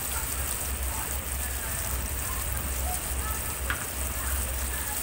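Chopped onions, tomatoes and chillies sizzling in hot oil in a kadai: a steady hiss with scattered small crackles and pops, over a low steady hum.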